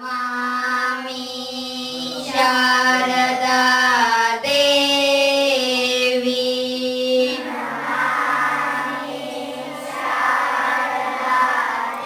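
Schoolchildren singing a prayer together in unison, in long held notes that step from one pitch to the next. About seven and a half seconds in, the tune drops to a lower pitch.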